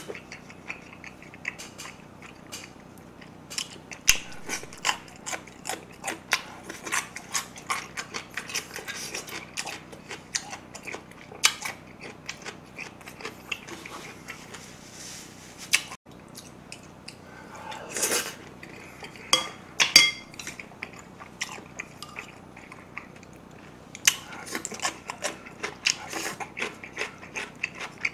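Close-miked chewing and wet mouth smacks from a mouthful of spicy marinated-crab bibimbap, a dense run of short clicks, with occasional light taps of chopsticks against ceramic bowls.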